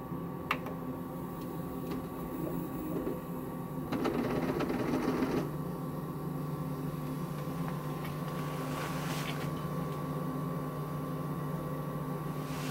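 Prusa i3 Mk3 3D printer running a calibration move, its stepper motors humming steadily as the axes travel on newly fitted plastic Drylin bushings. About four seconds in, a louder, noisier stretch lasts over a second.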